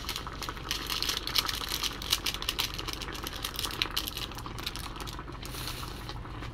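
Stew broth boiling hard in an electric pot: a dense, irregular crackle of small bubbles popping over a steady low hum.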